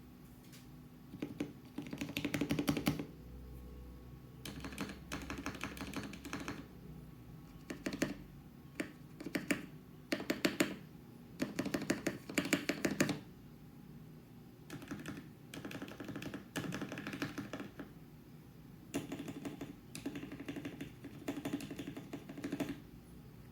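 Fast typing on a Gamakay K87 mechanical keyboard with lubed and filmed Gateron Milky Yellow linear switches, foam dampening and double-shot PBT keycaps. The keystrokes come in quick bursts a second or two long, separated by short pauses.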